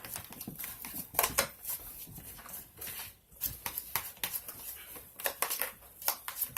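Fork mashing cooked egg yolks in a bowl, its tines clicking and scraping against the bowl in quick, irregular taps.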